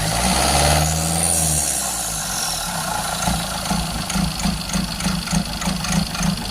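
Tata Nexon's 1.5-litre four-cylinder diesel engine running: a steady low drone for the first second and a half, then an uneven idle with a rhythmic knock, about three beats a second. The engine is missing and knocking from faulty injectors.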